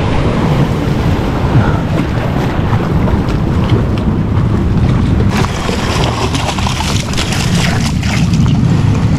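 Wind buffeting the microphone on a boat at sea, with the sea washing around it. A run of sharp knocks and clicks starts about halfway through.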